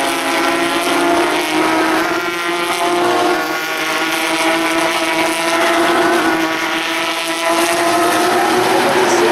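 Several Porsche 911 GT3 Cup race cars' flat-six engines running at high revs as the pack passes, their overlapping engine notes holding a steady pitch with small rises and falls.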